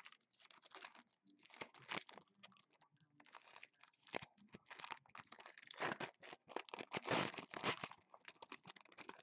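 Wrapper of a 2015 Prestige football card pack being cut with scissors and torn open, crinkling and rustling in irregular bursts.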